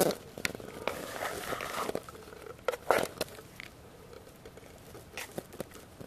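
Rice paddle scraping and scooping cooked rice in an aluminium pot, turning up a crust that is slightly scorched at the bottom: a run of soft scrapes and clicks over the first three seconds, then quieter.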